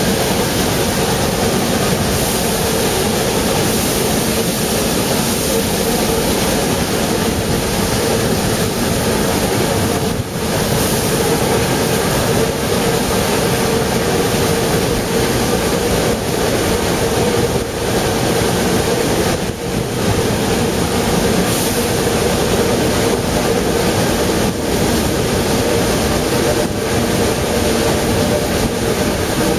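Narrow-gauge steam train hauled by the 1914 steam locomotive 99 6101, heard running from a carriage window: a loud, steady running noise of the coaches and locomotive with a constant hum. It dips briefly a few times.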